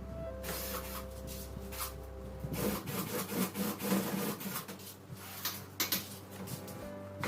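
Irregular scraping, rubbing and light knocks of hands-on work. A low steady hum stops about three seconds in.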